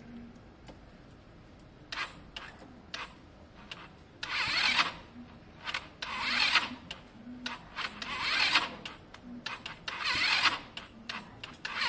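Electric starter on a Lexmoto Diablo's rebuilt 125cc four-stroke engine cranking in four short bursts about two seconds apart, with clicks between, and the engine not catching. It is turning over poorly, which the owner puts down to a low battery.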